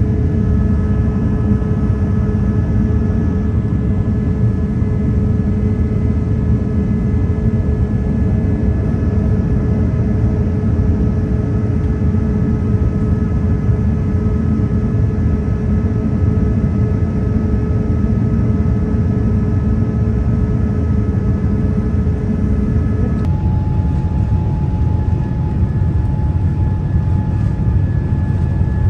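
Airbus A350 cabin noise in flight: a steady low roar of engines and airflow with several faint steady whining tones. About three-quarters of the way through, the whining tones abruptly change pitch while the roar carries on.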